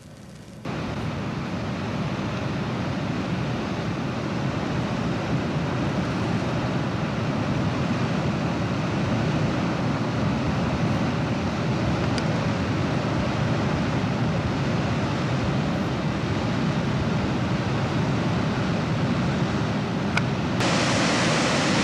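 Water rushing out beneath the Tucuruí Dam's spillway gates and churning below them: a steady rushing noise that starts abruptly about half a second in and turns brighter and hissier near the end.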